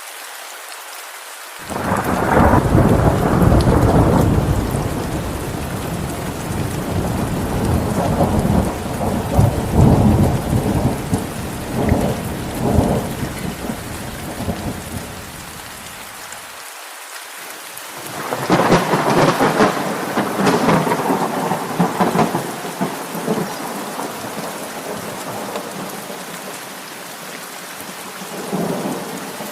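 Steady rain falling, with rolling thunder: a long loud peal starting about two seconds in and fading over some ten seconds, another about eighteen seconds in, and a fainter rumble near the end.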